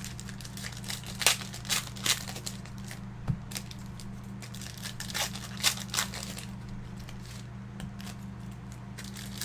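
Plastic card packaging crinkling and rustling in short, irregular bursts as trading-card boxes are handled, over a steady low electrical hum.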